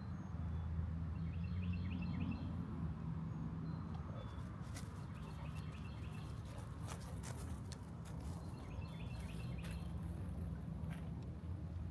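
A songbird singing short, repeated chirping phrases over a steady low rumble, with a run of sharp clicks and rustles in the middle.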